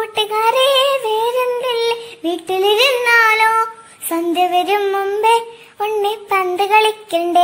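A child singing a melody alone, in held phrases with short breaks between them.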